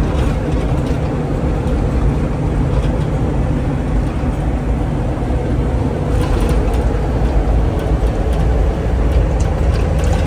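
Motorhome driving: a steady low rumble of engine and road noise.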